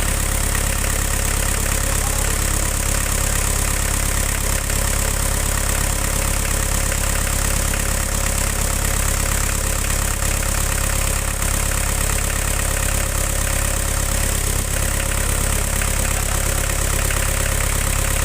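Diesel engine running steadily at about 1,500 rpm, with no change in speed.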